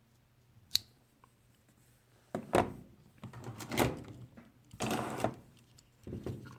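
Vintage pocket knife being handled: a single sharp click about a second in, then several short bursts of scraping and clicking as its blades and tools are worked open and shut.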